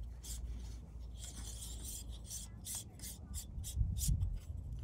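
Metal Kase filter adapter ring being screwed onto a camera lens's filter thread: a run of short, dry rasping scrapes of thread on thread.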